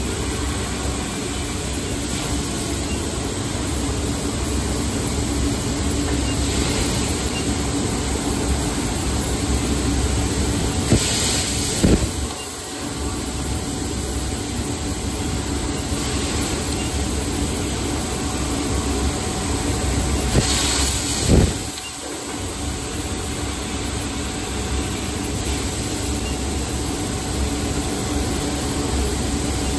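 Laser tube cutting machine cutting a metal tube: a steady hiss and machine hum. Twice, about 11 and 21 seconds in, there is a short louder hiss followed by a brief lull.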